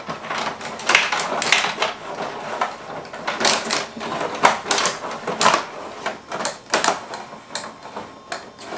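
Rod hockey game in play: the metal player figures are spun and slid on their rods, clacking against the puck and the rink in a quick, irregular run of clicks and rattles.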